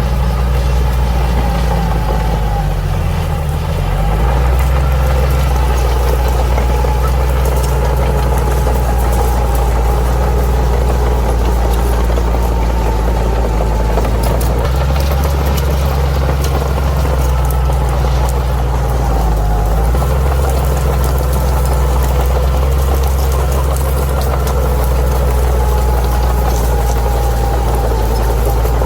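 Bulldozer's diesel engine running steadily with a deep drone, its pitch dipping briefly about three seconds in and again near twenty seconds.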